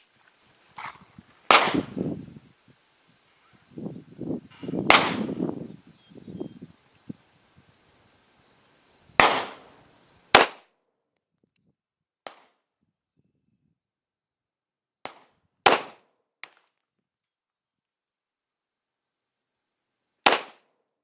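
Kimber Custom II 1911 pistol firing .45 ACP rounds one at a time, about six sharp reports a few seconds apart, with fainter clicks between. Crickets chirp steadily behind the first several shots.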